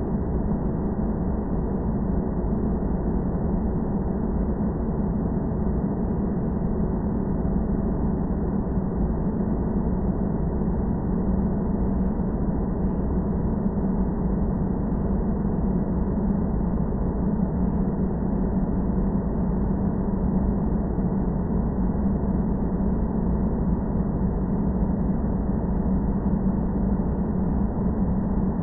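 Steady airliner cabin noise: a constant low drone with a hum near 200 Hz and no change in level.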